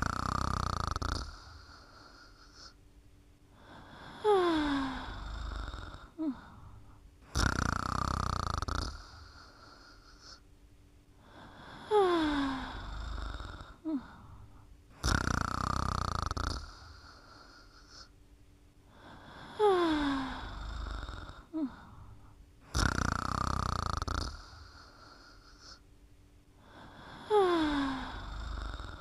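Snoring in a steady repeating cycle, four times: a loud rasping snore of about a second and a half, then a thin whistle that falls in pitch, with quiet breathing between.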